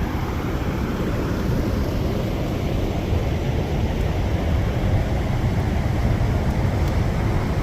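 Steady rushing of a river waterfall, an even noise heavy in the low end.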